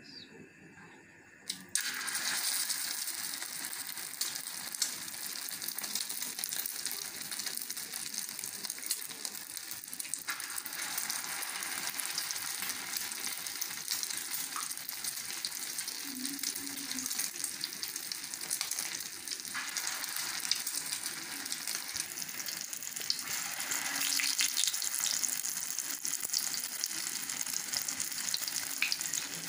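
Egg-coated chicken and chana dal shami kebabs sizzling in a little hot oil on a flat tawa griddle. The sizzle starts suddenly about two seconds in, as the first kebab goes down, and runs on steadily, growing louder about ten seconds in and again near the end as more kebabs are added.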